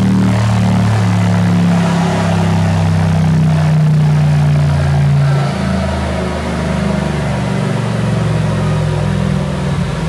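Straight-piped Mercedes G63 AMG 5.5-litre biturbo V8, catalysts removed and running through an Akrapovic exhaust, held at steady raised revs. About five and a half seconds in the revs drop and it runs on lower and less evenly.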